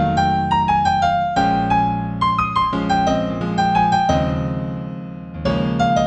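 Solo piano playing a slow New Age piece in A minor: a melody of single notes over held low chords. About four seconds in the notes are left to die away, and a new chord is struck shortly before the end.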